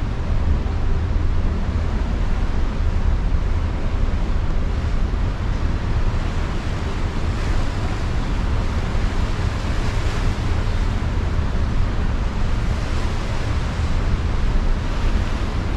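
Steady wind rumbling on the microphone over the wash of the sea below a moving cruise ship.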